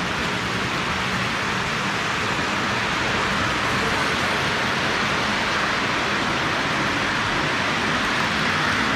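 Lionel postwar O gauge model trains running on three-rail track: a steady rolling hiss of metal wheels on rail with a faint low motor hum underneath, growing a little louder about three seconds in.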